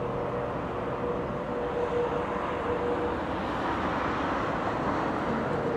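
Diesel locomotives at the rear of a Norfolk Southern freight train running as they move away, a steady engine drone with a humming tone held through most of it.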